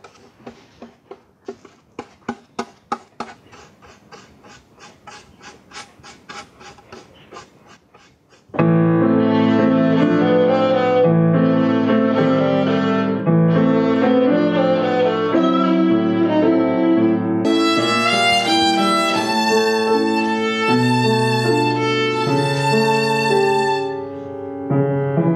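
Soft, evenly repeating ticks, about four a second, then about eight seconds in a violin starts up loud with piano accompaniment, playing a slow melody of held notes. The melody climbs to higher notes near the end. The violin is a student's handmade instrument.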